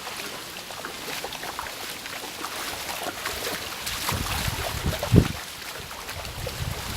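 Shallow running stream water trickling and splashing in many small ticks. From about four seconds in, wind rumbles on the microphone, with one thump just after five seconds.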